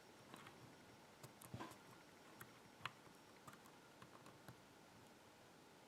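Faint, scattered clicks of a thin hook pick probing the pin stacks inside a Kryptonite 6-pin padlock held under tension, about eight small ticks spread irregularly.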